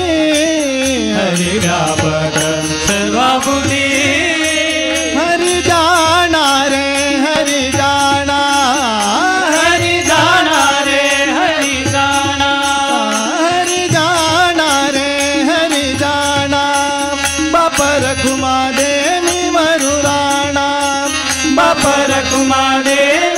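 Devotional bhajan music: a man's voice sings long, ornamented lines with gliding, wavering notes over a steady harmonium tone, with small brass hand cymbals (taal) clinking in time.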